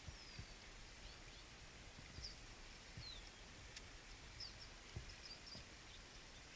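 Near silence, with faint, scattered short bird chirps.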